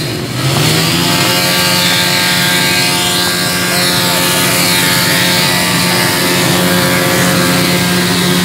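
Small motorcycle engines running in a large group ride. The nearest engine rises in pitch in the first second, then holds a steady drone.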